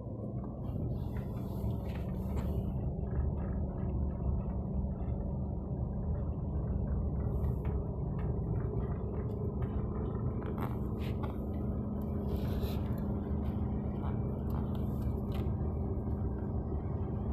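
Car engine running with a steady low rumble of engine and road noise, with scattered light clicks and scrapes.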